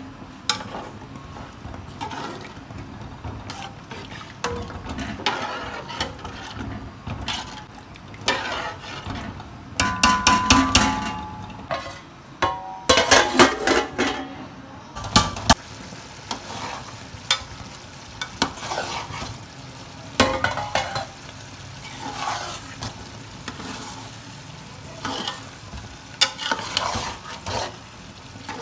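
A metal spoon stirring and scraping in a large aluminium pot of rice, with repeated clinks and knocks against the pot over a soft cooking sizzle. About ten to fifteen seconds in comes a louder, ringing metal clatter as the aluminium lid is handled on the pot.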